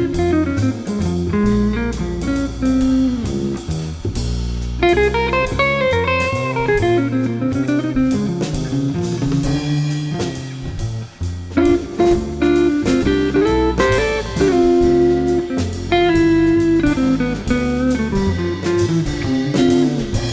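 Background music: an instrumental passage of a blues-rock song, a guitar playing a melody with gliding, bent notes over bass and drum kit.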